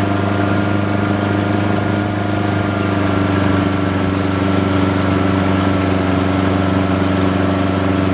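Motorboat engine running steadily, with a slight drop in pitch over the first few seconds.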